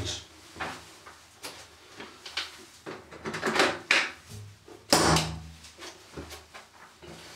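Clunks, knocks and scraping of a large 32-amp industrial plug being handled and pushed into its wall socket, the loudest knocks about three and a half and five seconds in.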